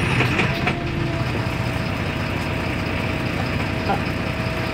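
Interior of a 2001 MAN NL222 city bus: its diesel engine and drivetrain running steadily, heard through the passenger cabin. A thin steady whine sets in about a second in.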